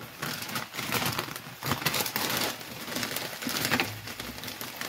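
Plastic bag of frozen mixed vegetables crinkling and rustling as it is handled and tipped over a pan.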